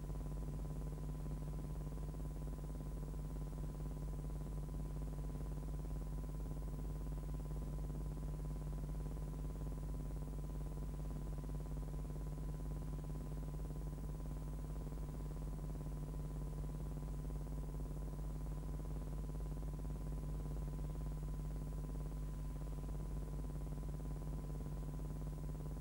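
Steady low electrical hum with a faint, steady high tone over hiss, unchanging throughout; the noise floor of a silent film's transfer.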